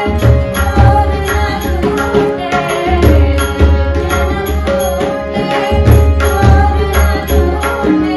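A woman singing a Hindustani devotional bhajan in a gliding, ornamented line over a steady harmonium, with tabla and pakhawaj strokes and small taal hand cymbals ticking on the beat.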